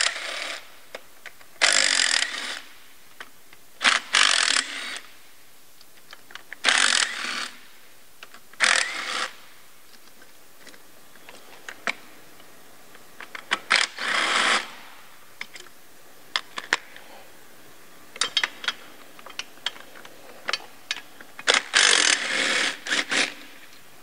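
Cordless driver with a long socket extension spinning out the 8 mm bolts of the lower intake manifold one after another: about seven short runs of whirring, each half a second to a second and a half long, with small clicks and clinks of socket and bolts in between.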